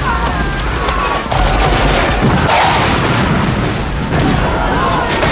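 Battle sound effects: a continuous loud din of booming gunfire and explosions, with voices shouting over it.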